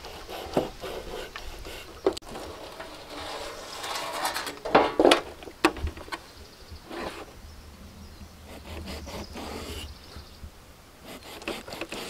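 A knife scoring a large rohu fish on a metal tray: irregular scraping and crunching through the scales, with a few louder knocks and scrapes about five seconds in.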